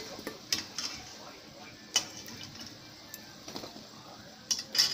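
Metal slotted spoon clinking and tapping against the side of a metal kadhai, a string of sharp, irregular clicks as fried balushahi are lifted out of the oil and drained.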